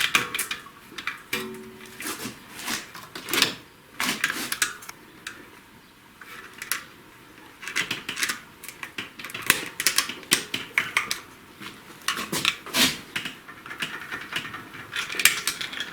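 Irregular metallic clinks, taps and knocks of hand tools and engine parts being handled while an engine is dismantled on the bench.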